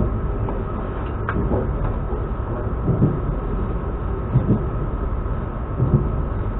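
Electric commuter train running at speed, heard from inside the carriage: a steady rumble with a thin high tone throughout, and three low knocks about a second and a half apart.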